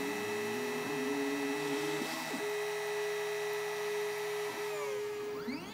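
X-Carve CNC router spindle running with a steady whine over the ice. Near the end it winds down, its pitch falling, and a brief rising-then-falling whine follows.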